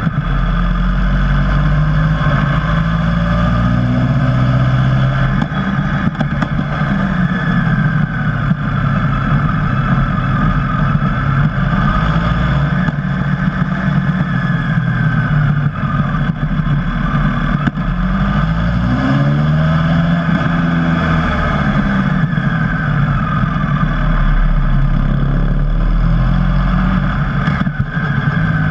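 Motorcycle engine heard from an onboard camera, its pitch rising and falling repeatedly as the rider opens and closes the throttle through the corners, over steady wind noise.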